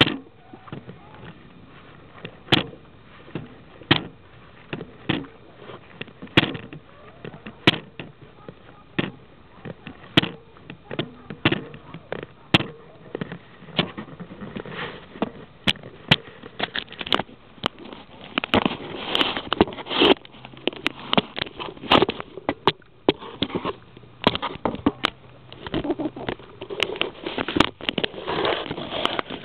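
Handling noise on a small camera taped to a cardboard model rocket: irregular sharp clicks and knocks as hands grip and move the rocket body. Busier rubbing and rustling comes in the second half as the parachute and shock cord are worked close to the microphone.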